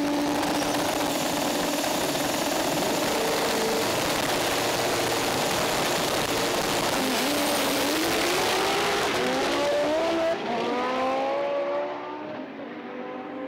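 Two drag cars, a white Volkswagen Golf and a red car, staged at the line with their engines held loud and steady. About seven seconds in they launch, with engine pitch rising through the gears and a brief drop near ten seconds. The sound fades after about twelve seconds as they run down the strip.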